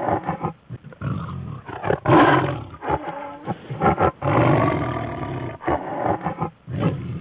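Big cat calling: a run of short, rough roars and grunts, with longer drawn-out roars about two seconds in and again from about four seconds in.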